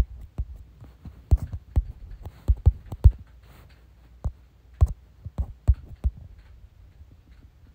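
Irregular soft knocks and taps close to the microphone, about fifteen over six seconds, thinning out near the end, over a faint low hum. This is handling noise while a scripture passage is being looked up.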